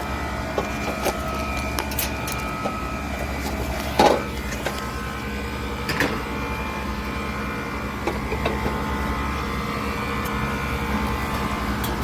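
Steady hum of running HVAC machinery, with scattered clicks and knocks from handling tools at the unit; the loudest knock comes about four seconds in.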